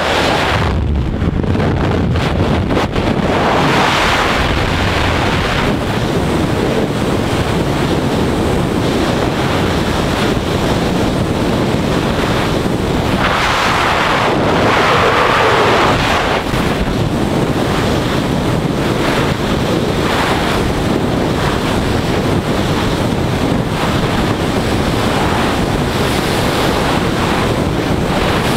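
Loud, steady rush of air buffeting the camera microphone during skydiving freefall, swelling for a few seconds in the middle.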